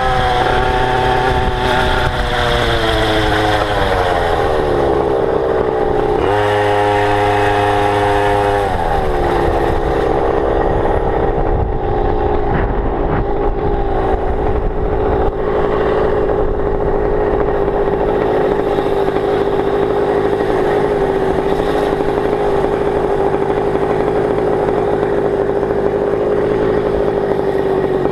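Goped GTR scooter's small two-stroke engine running under way. It revs high and drops back, revs up again for a few seconds, then holds a steady lower pitch for most of the stretch. The owner wonders whether it is running too rich on its 25:1 fuel-oil mix.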